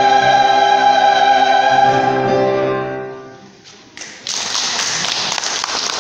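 A church choir holding a sustained chord that fades away a little past halfway. About four seconds in, a loud, even rushing noise with faint crackle starts and carries on.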